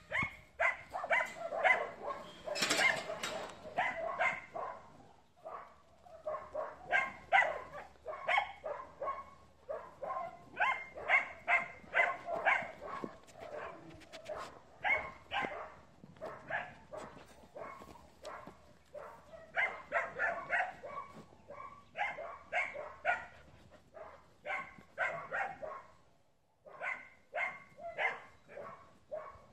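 A dog barking over and over in short, quick barks, about two or three a second, pausing briefly twice.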